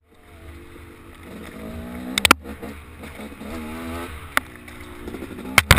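Off-road vehicle engine revving up and easing off several times on a trail ride. Sharp knocks come twice a little after two seconds, once past four seconds and twice near the end.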